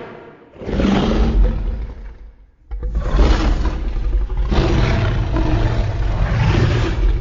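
Godzilla-style monster roar sound effects: one roar of about two seconds, then a longer roar starting near the three-second mark that carries on past the end.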